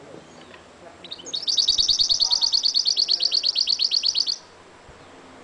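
Caged mulet (goldfinch-canary hybrid) singing a fast, even trill of about ten repeated notes a second, high-pitched, lasting about three seconds after a short rising lead-in, then stopping abruptly.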